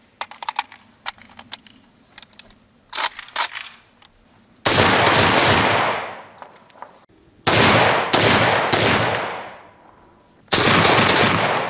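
A few light metallic clicks of the PSL rifle being handled, then three loud semi-automatic 7.62×54mmR rifle shots about three seconds apart, each trailing off in a long echo.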